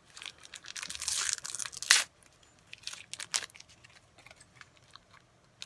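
Packaging being torn open and crinkled by hand, a dense crackling for about two seconds that ends in one sharp loud rip, followed by a few faint crinkles.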